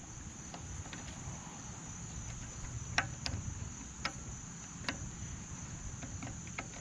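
Crickets chirping steadily in a high-pitched drone, with a few sharp metal clicks from a ratchet working loose the float-bowl nut of a Tecumseh mower carburetor.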